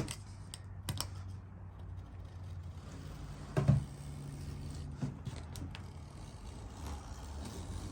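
Handling noise from working a window screen in its frame: faint clicks and scraping, with one louder knock about three and a half seconds in.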